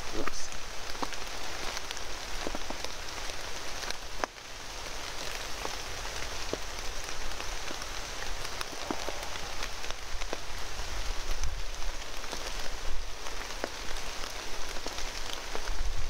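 Steady rain falling, with scattered drops heard as sharp ticks. It briefly drops away about four seconds in.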